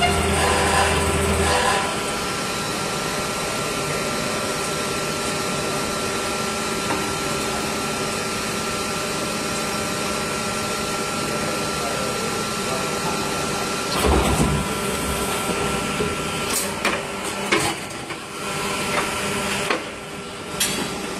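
PET preform injection moulding machine running through a cycle on a six-cavity mould: a steady mechanical hum and hiss while the mould is closed, with a deeper low hum that drops away early. About two-thirds through comes a heavier low surge as the mould opens, followed by a run of sharp clicks and knocks near the end.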